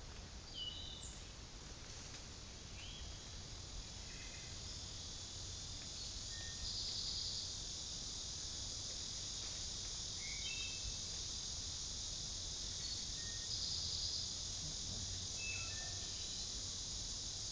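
Outdoor ambience: a steady, high insect chorus of crickets or similar, with short bird chirps scattered through it. A brief buzzy trill stands out twice, about a third of the way in and again about three-quarters through.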